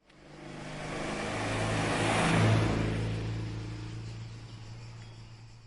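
A motor vehicle's engine running steadily, swelling up to its loudest about two and a half seconds in and then fading away.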